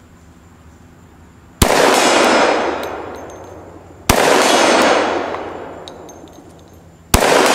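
Three shots from a Glock 20 10mm pistol, a few seconds apart, each followed by a long rolling echo that dies away.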